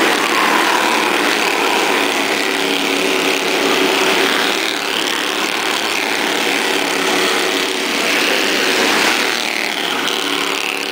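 Small race cars running laps on a paved short-track oval, their small engines giving a steady high buzz that rises and falls in pitch as the cars pass and go round the turns.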